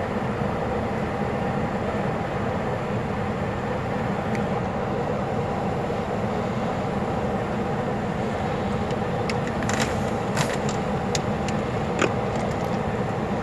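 Steady mechanical running noise of a large military helicopter idling on the ground with its rotor turning, mixed with the idle of a nearby truck. A few short clicks around ten and twelve seconds in.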